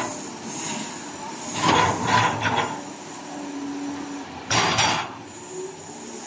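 Doosan DX225LC crawler excavator working: its diesel engine runs steadily under the machine's mechanical noise, with louder noisy bursts about two seconds in and again near five seconds.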